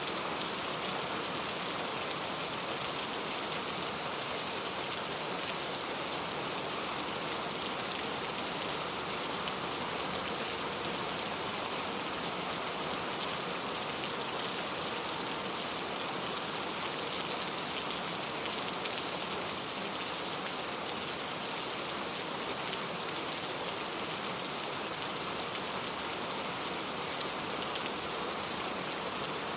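Steady rain falling and pattering on a surface, an even hiss of many drops without let-up.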